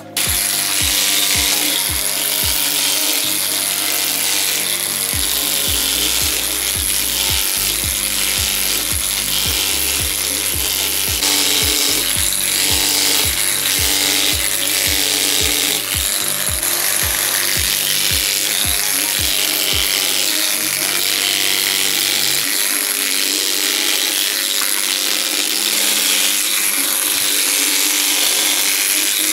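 Pneumatic air hammer driving a chisel into Carrara marble: a loud, steady hiss and rapid chatter of the air-driven tool on stone, with a constant high whine. Background music with a low beat runs underneath for most of it.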